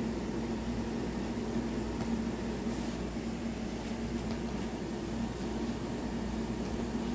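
Steady mechanical hum in a small room, with a low drone underneath, unchanging throughout.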